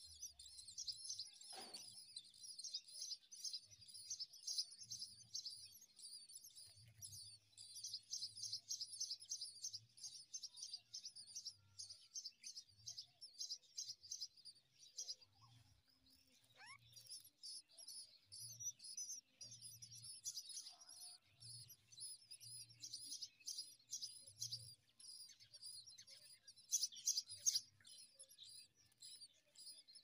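Common myna nestlings begging for food: a continuous stream of rapid, thin, high-pitched cheeps, with louder bursts near the end.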